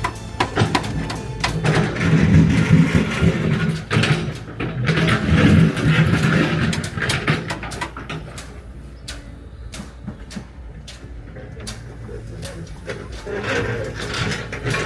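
Backhoe working: its engine runs steadily under many sharp clanks and knocks, louder for the first half and easing after about eight seconds.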